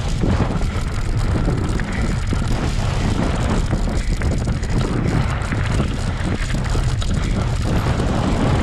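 Wind buffeting the microphone over the steady rolling noise of a bike on a dirt trail, with scattered rattles.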